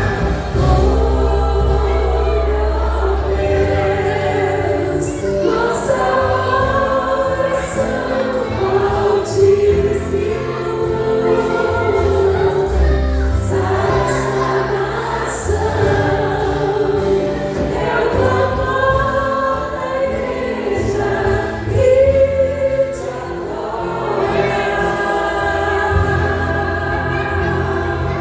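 Gospel worship song: a choir singing over a band with held bass notes.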